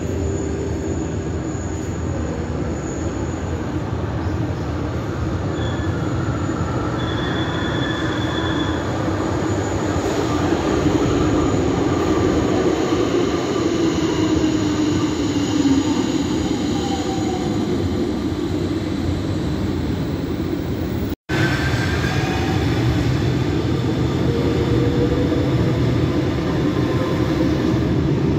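Metro do Porto CRRC low-floor tram running on its rails: a steady rumble overlaid with thin whining tones that slide up and down in pitch. The sound drops out for an instant about three-quarters of the way through.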